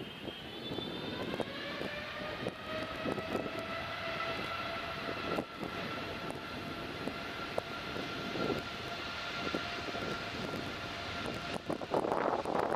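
Boeing 787-8 airliner's jet engines whining at taxi power, the whine rising in pitch over the first two seconds and then holding steady. Near the end, loud gusts of wind on the microphone cover it.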